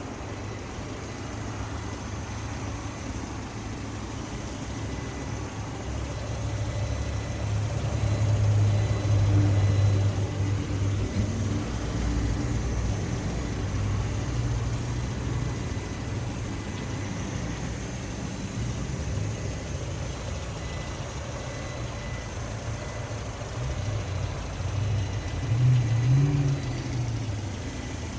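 Lada Priora's four-cylinder petrol engine running hot, with a knock that the owner says is absent when cold and grows stronger once the engine is warm. It gets louder for a few seconds twice, about a quarter of the way in and near the end.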